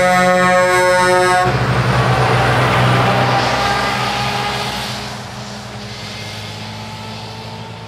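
Truck air horn held in one steady blast that cuts off about a second and a half in, then a New Generation Scania Super tractor unit's diesel engine running as the truck passes close by with its trailer, fading as it drives away.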